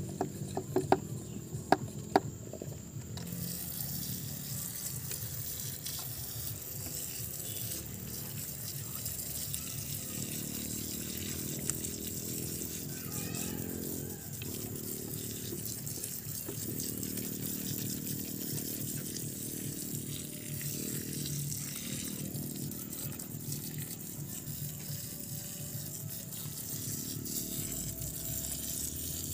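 A hand-pump pressure sprayer's water jet hissing steadily as it sprays onto loose, muddy soil and bare roots, starting about three seconds in. A few sharp clicks come before it.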